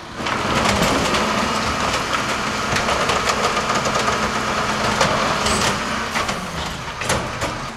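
A large engine running loudly and steadily with a constant whine, and a couple of sharp clanks near the end.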